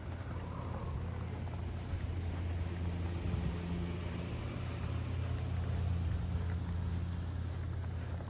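Steady low rumble of vehicle engines on a city street, with an engine hum swelling a little in the middle.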